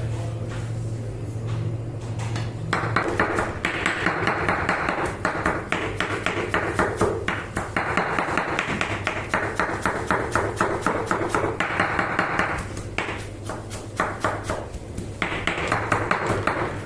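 A knife chopping rapidly on a cutting board in quick runs of strikes, with a steady low hum during the first few seconds.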